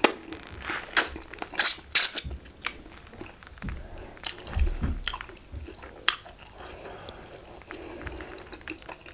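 Close-up mouth sounds of eating catfish head: loud, sharp crunches and wet smacks over the first two seconds or so, then softer chewing.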